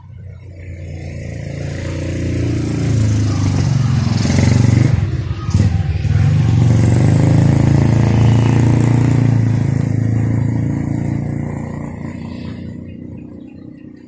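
Engine of a motor vehicle passing close by: it grows louder over the first few seconds, stays loud with a brief dip in the middle, and fades away near the end.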